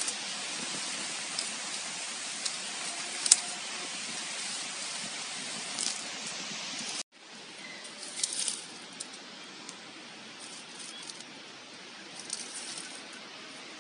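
Short-beaked echidna rooting through bark mulch: scattered small crackles and rustles over a steady hiss. The hiss drops abruptly about halfway through at a cut, and the crackling goes on more quietly.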